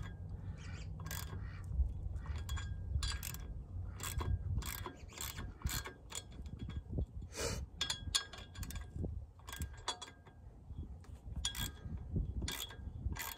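Hand ratchet clicking in short runs, about one or two a second, as jacking bolts are turned into the threaded holes of a front brake rotor to press it off the hub.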